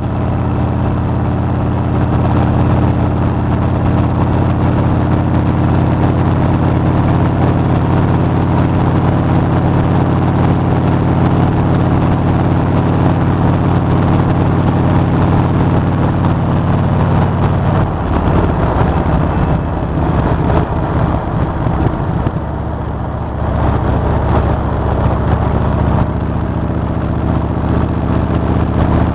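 Motorcycle engine running steadily while riding, under a haze of wind and road noise. About two-thirds of the way through the engine note changes and turns rougher for a few seconds before settling again.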